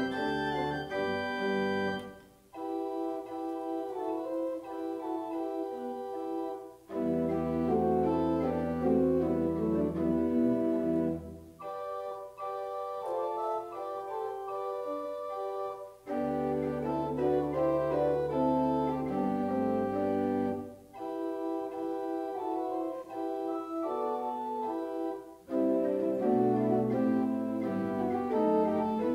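Organ prelude: sustained chords played in phrases with short breaks between them, and deep pedal notes held beneath twice.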